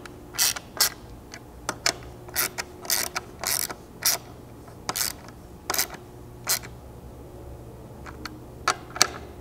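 Hand ratchet clicking in short, irregular runs as it snugs the factory nuts down onto small 6 mm studs, turned by hand rather than with an impact gun so as not to strip them. The clicking pauses for a couple of seconds, then a few more clicks come near the end.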